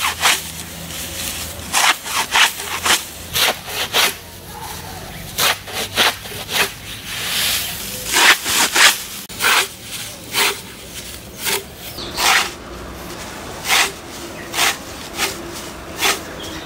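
A bundle of dry plant stalks drawn and struck against a blade fixed upright in the ground: sharp rasping strokes, about one or two a second and unevenly spaced, with dry straw rustling between them.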